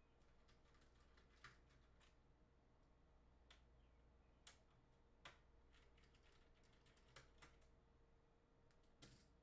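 Faint, irregular clicks of keys on a mechanical keyboard, about a dozen scattered presses, over a faint steady hum.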